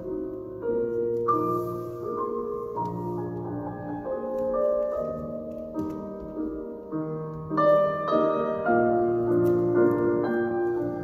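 Piano music playing, one held chord or note after another in an even flow.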